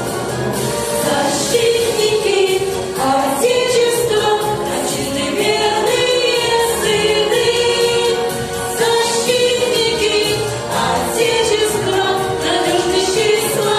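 A vocal ensemble singing a song together in chorus over instrumental accompaniment.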